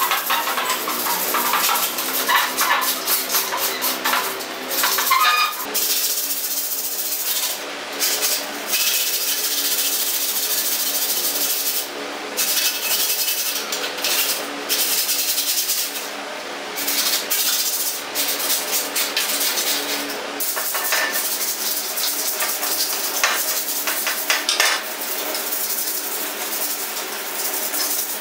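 Sandpaper scratching back and forth by hand over the painted steel mudguard of a Royal Enfield Bullet, in quick irregular strokes, rubbing down old paint and rust.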